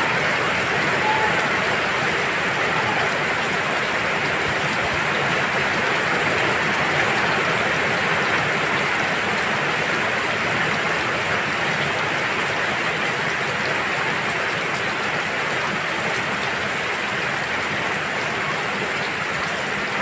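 Steady rain falling onto the water of a garden pond: a dense, even hiss of drops splashing on the surface that does not let up.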